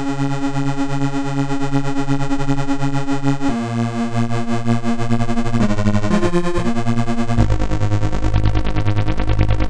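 Crumar Stratus synthesizer playing held notes with a square-wave LFO on the VCA, so the volume is pulsing on and off in a steady rhythm. The note changes about three and a half seconds in, a few quick notes follow around six seconds, and a lower note comes in near the end.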